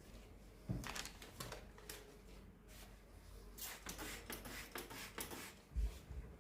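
Irregular light clicks and knocks, as of small objects being handled, with a dull thump about a second in and another near the end.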